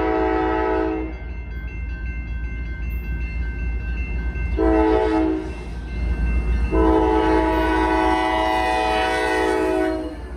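Locomotive air horn on an approaching CSX freight train, a chord of several notes, in the grade-crossing pattern: a long blast ending about a second in, a short blast about four and a half seconds in, then a long blast of about three seconds. The low rumble of the diesel locomotives runs underneath.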